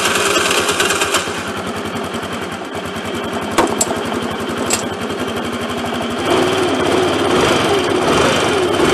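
Znen Eyas 50cc four-stroke scooter engine running just after starting on a replacement CDI ignition box, the dead original having given no spark. It eases back after about a second, then picks up speed and grows louder about six seconds in, with two sharp clicks in between.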